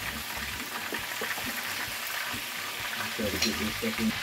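Seared beef roast sizzling steadily in its juices in a hot roasting pan, while chopped potatoes, carrots and mixed vegetables are tipped in from a plastic bowl and scraped out with a wooden spoon, with scattered soft taps as the pieces land.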